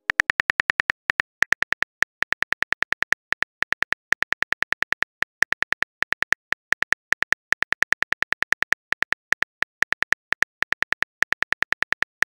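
Phone keyboard typing clicks, a rapid even patter of about eight short clicks a second in runs with brief pauses, as a text message is typed out.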